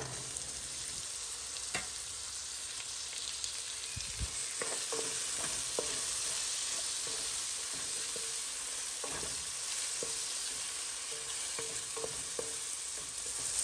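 Chopped vegetables with freshly added tomatoes sizzling in oil in a kadhai, stirred with a wooden spatula: a steady sizzle with scattered scrapes and taps of the spatula against the pan.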